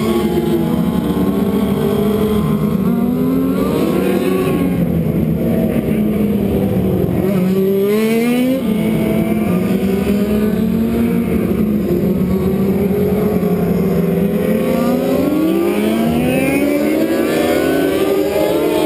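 Several winged outlaw dirt-track race cars running hot laps together, their engines overlapping. Each engine's pitch repeatedly climbs as the car accelerates off the turn and falls away as it passes, and the sound never lets up.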